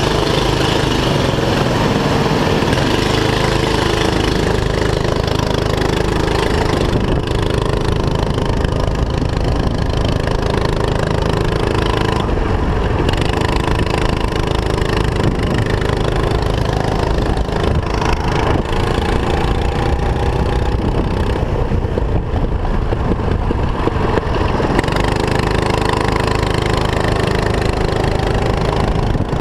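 Onboard sound of a racing kart's small engine running continuously, its pitch rising and falling with the throttle.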